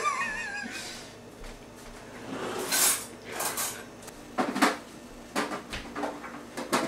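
Metal baking pans clattering and knocking as they are pulled out and handled, in a series of separate clanks spread over the last few seconds.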